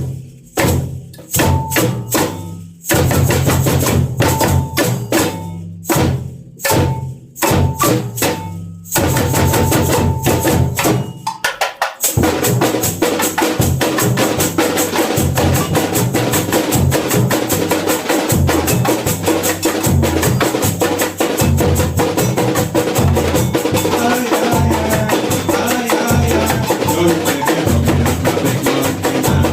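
Samba bateria drumming: loud, spaced unison drum strokes with gaps between them for the first dozen seconds, then the whole percussion section comes in with a continuous samba groove from about twelve seconds in.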